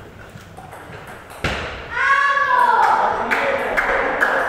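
Table tennis balls clicking off bats and tables, with a sharp knock about a second and a half in. A loud voice calls out just after, and a steady rally of ball clicks, about three a second, follows.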